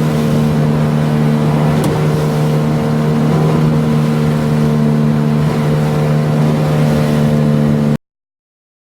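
9.8 hp outboard motor running steadily under way, its pitch easing down slightly at the start, then stopping abruptly about eight seconds in.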